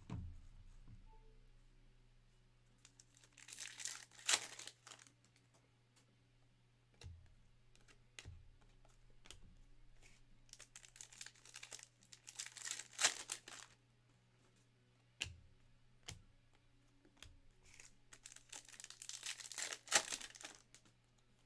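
Topps Chrome foil pack wrappers crinkling and tearing as packs are opened, in three bursts about 4, 12 and 19 seconds in, with a few soft knocks of cards set down on the table between them.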